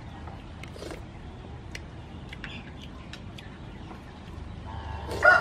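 Faint scattered clicks over a low outdoor background, then a rooster starts crowing loudly near the end.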